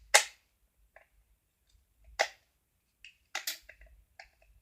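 Sharp plastic clicks from handling a Bart Simpson alarm clock: a loud click just after the start, another about two seconds in, and a quick pair around three and a half seconds, with a few faint ticks between.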